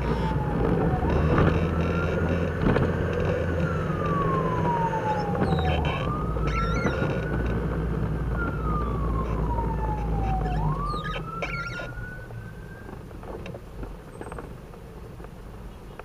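Fire truck siren on a slow wail, rising and falling in pitch about every five seconds, over the truck's engine running, heard from inside the cab. The siren winds up one last time and stops about three-quarters of the way through, and the engine noise drops away.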